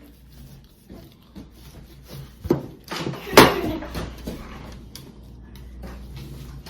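A few scattered knocks and clicks, as of things being handled on a hard surface, with the loudest sharp knock about three and a half seconds in.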